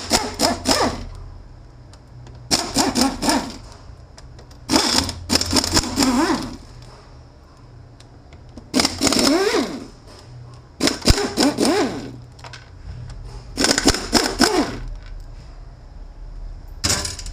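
A power driver spins Torx T50 bolts out of a BorgWarner 1356 transfer case in short bursts. There are about seven bursts of one to one and a half seconds each, the motor's pitch rising and falling within each one.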